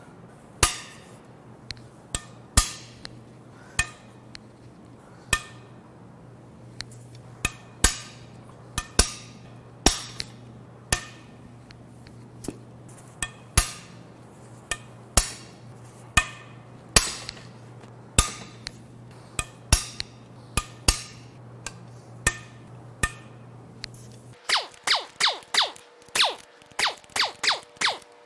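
Sharp cracks about once a second as the main bearing cap bolts of a Jaguar/Land Rover 5.0 L supercharged AJ V8 break loose under a breaker bar. Near the end comes a quicker run of sharp clicks, several a second.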